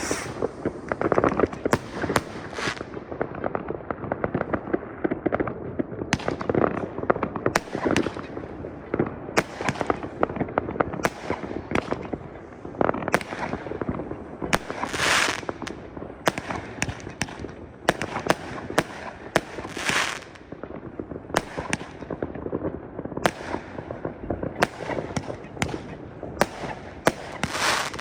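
Fireworks and firecrackers going off nonstop: many sharp bangs at irregular intervals over a constant background crackle, with a few louder bangs standing out near the middle.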